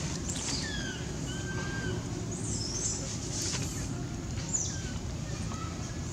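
Several faint, short high chirps, some gliding in pitch, scattered over a steady low background rumble.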